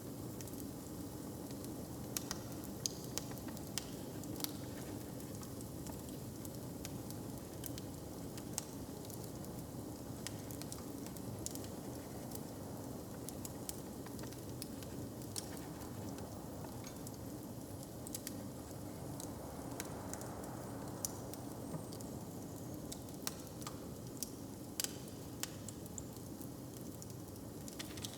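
Wood fire crackling, with sharp pops scattered irregularly over a steady low background.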